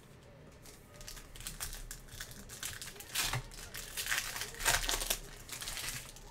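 Foil wrapper of a trading-card pack being torn open and crinkled by hand, a run of crackling rustles that is loudest a little past the middle.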